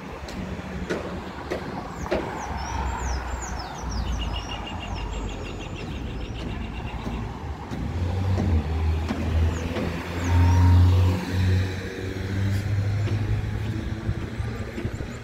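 Car traffic on a street: engine and tyre noise from passing vehicles, swelling to its loudest about ten to eleven seconds in. Short high bird chirps come about three seconds in, followed by a rapid, even trill.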